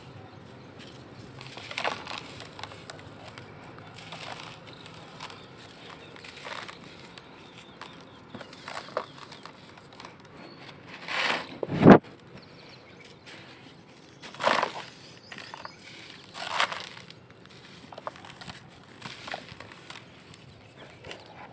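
Dusty charcoal balls crunching and crumbling as hands squeeze and break them, in separate crunches every couple of seconds. The loudest crunch comes about halfway through and ends in a heavy thump.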